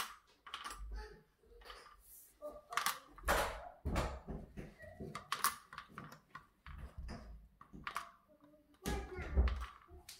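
Irregular footsteps and handling knocks from a hand-held phone carried through small rooms: low thuds mixed with sharp clicks.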